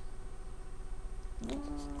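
Low room hum, then about one and a half seconds in a dog starts a weird drawn-out whining moan at a steady pitch.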